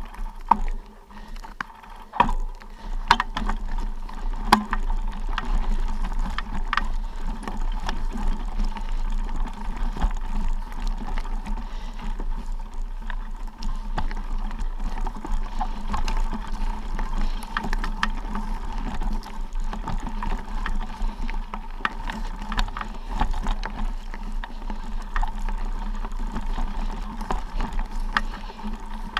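Mountain bike running fast down a rocky forest trail: the rear freehub's ratchet buzzes while it coasts, and the tyres crunch over loose stones. Frequent sharp knocks and rattles come from the bike jolting over rocks, with a steady low rumble of wind on the microphone.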